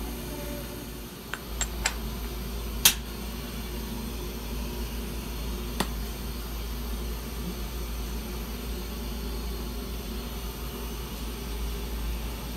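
Steady low hum of a CNC milling machine, broken by a few short sharp clicks between about one and a half and three seconds in, the loudest near three seconds, and one more near six seconds.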